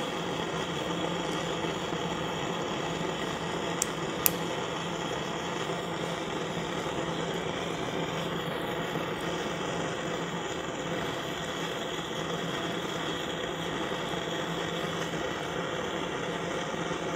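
A Valor Ventes blowlamp burning with a steady rushing noise, used to burn clogged filament out of a 3D-printer nozzle. Two sharp metallic clicks about four seconds in.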